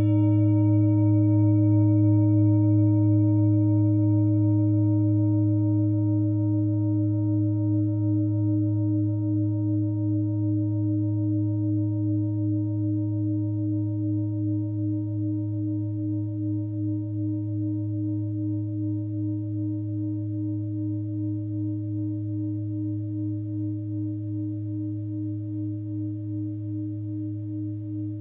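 A singing bowl ringing out after a single strike, as a low hum with a few higher overtones. It has a pulsing wobble and fades slowly and evenly.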